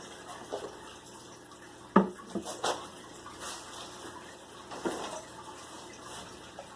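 A few hard knocks and clinks of a broken ceramic sculpture being handled and set down, the loudest about two seconds in, over a steady background hiss.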